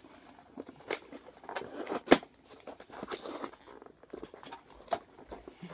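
Handling of a cardboard box and its packaging: irregular rustling, scraping and tapping, with one sharp click about two seconds in.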